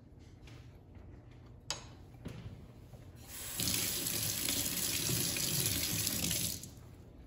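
A knife is set down on a cutting board with a single knock. About three seconds in, a kitchen faucet runs for roughly three seconds and is shut off.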